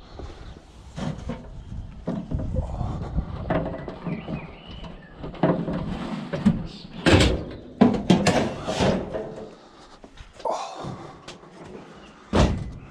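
A light piece of scrap metal being picked up and loaded into a van, with irregular knocks and clatters and a sharp loud knock near the end.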